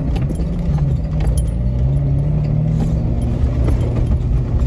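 Vehicle engine running while driving over a gravel road, heard from inside the cabin. The engine note shifts in the first second, then holds steady, with a light jangling rattle of loose items.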